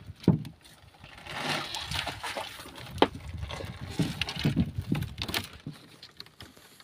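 Water sloshing and splashing as live spiny lobsters are handled out of a sea cage, with a few sharp knocks and clicks.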